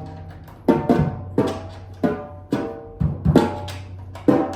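A newly tensioned drum head struck by hand about seven times in an uneven rhythm, each hit ringing with a clear pitch, as its tuning is checked after tightening the lugs.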